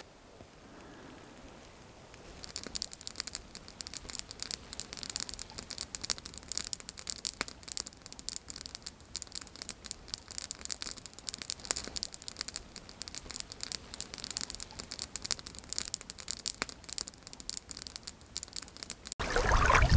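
Small fire of dry twigs and spruce sap crackling, with many sharp irregular snaps starting about two seconds in as the kindling catches.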